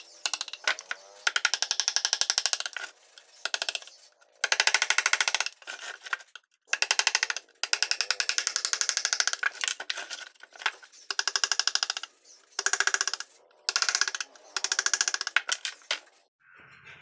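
Ball-peen hammer rapidly tapping a carving chisel into a wooden panel, in quick runs of light blows separated by short pauses. The tapping stops near the end.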